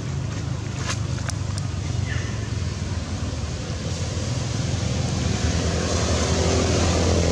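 A motor vehicle engine running, a steady low hum that grows louder toward the end, with a few sharp clicks about a second in.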